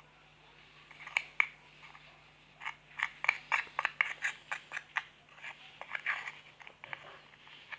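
Slime being squished and pressed, giving irregular sticky clicks and small pops that come thick and fast after the first couple of seconds.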